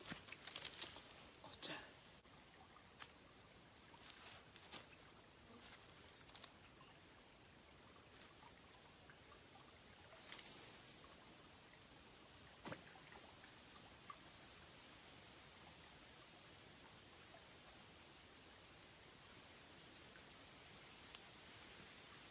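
Insects chirring steadily in two high, continuous tones. A few sharp clicks and knocks come in the first two seconds, a brief rustle about ten seconds in, and one more click a little later.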